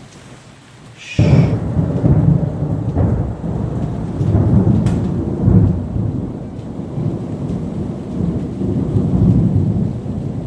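Thunder: a sudden loud crack about a second in, then deep rumbling that rolls on, swelling and easing, over light rain.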